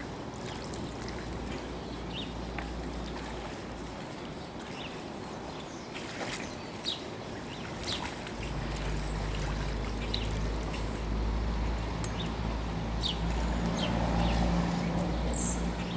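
Creekside outdoor ambience: a steady hiss of flowing water and air with scattered short high bird chirps and small clicks. About halfway through a low rumble with a faint hum joins in and continues.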